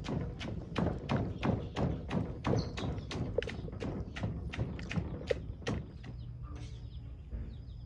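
Pestle pounding kroeung paste (lemongrass, galangal and spices) in a mortar: steady thuds about three times a second. The pounding stops about six seconds in.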